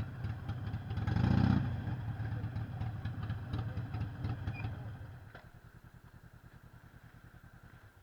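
Harley-Davidson Sportster 883 SuperLow's air-cooled V-twin idling, with a short throttle blip about a second in. About five seconds in it drops much quieter, leaving an even, pulsing idle beat.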